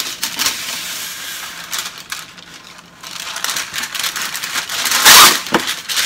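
Baking paper pulled from its roll and pressed flat onto a metal baking tray, rustling and crinkling, with one loud crackle about five seconds in.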